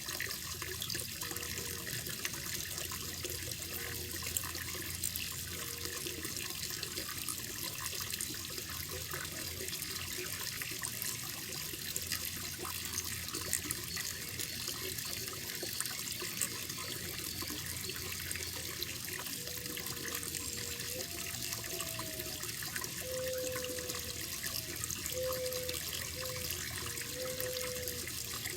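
Koi pond's running water, a steady trickling and splashing.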